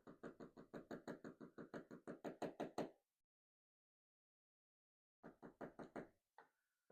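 Rapid, even tapping on a cam lock being taken apart for its pins, about seven light knocks a second. A run of about three seconds is followed by a shorter run and a couple of single taps near the end.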